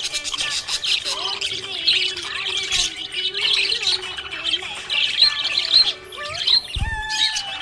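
Budgerigars chirping and warbling in a continuous, busy chatter of quick high chirps and squawks.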